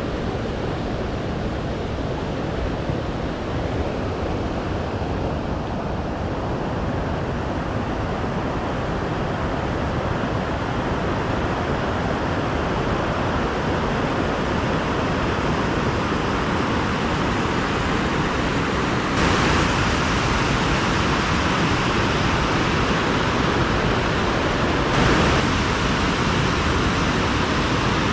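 Steady rushing of water, a loud even hiss that grows slowly louder and steps up twice, about two-thirds of the way in and again near the end.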